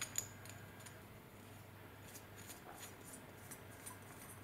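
Faint small metallic clicks and ticks of a homemade M3 × 0.6 (JIS) screw being turned by hand into the threaded hole of a model glow engine's silencer bracket, with two sharper clicks at the very start.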